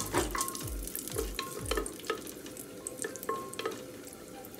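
Wooden spatula stirring cashews frying in ghee in an aluminium pressure cooker, knocking against the pot with short metallic rings, about twice a second at first and more sparsely later, over a faint sizzle.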